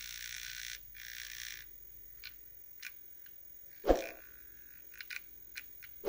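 Loose deflection yoke on the neck of a Semp Toshiba 21-inch CRT TV's picture tube, buzzing and rattling against the tube as it is pressed by hand. There is a hiss for about the first second and a half and a croaking buzz that falls sharply in pitch about four seconds in, with a few faint ticks. The glue holding the yoke to the tube neck has dried out and let go, so the yoke vibrates.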